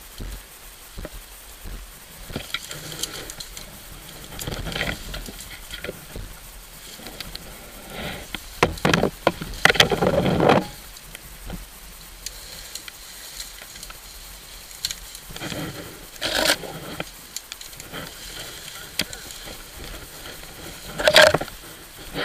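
Leaves and branches rustling, crackling and snapping as undergrowth is pushed through and cleared close to the microphone, with louder bursts about nine to ten seconds in, again around sixteen seconds and near the end.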